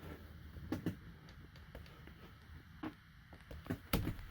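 Scattered light clicks and knocks of metal as a screwdriver driven through a stuck spin-on oil filter is cranked on, the filter canister giving and tearing rather than turning. The sharpest knocks come near the end.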